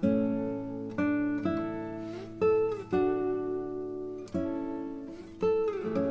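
Background music: acoustic guitar strumming a slow run of chords, each one struck and left to ring out.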